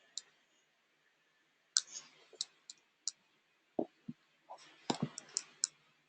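Scattered sharp clicks of a computer mouse and keyboard, coming a few at a time, with a couple of dull low thumps about four seconds in.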